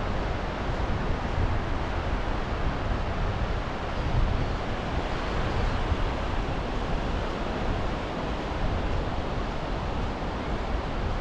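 Surf breaking and washing along a sandy shore, heard as a steady wash, with wind rumbling on the microphone underneath.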